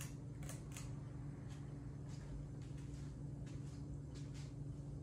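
1997 Hampton Bay Grayton ceiling fan running on its low speed: a steady low motor hum with faint, soft clicks now and then.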